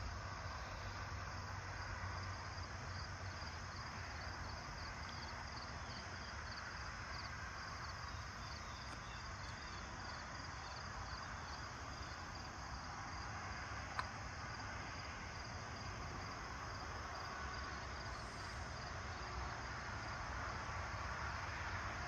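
Crickets chirping in an even, pulsing rhythm over a steady low rumble, with one sharp click about fourteen seconds in.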